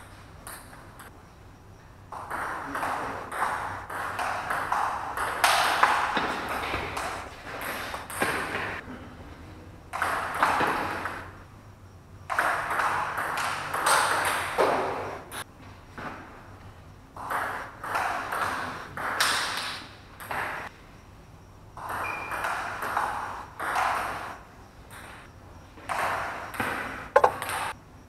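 Table tennis ball being struck by paddles and bouncing on the table in several fast rallies, quick sharp pings a fraction of a second apart, each rally stopping for a short pause before the next point. The hits ring out in a large tiled hall.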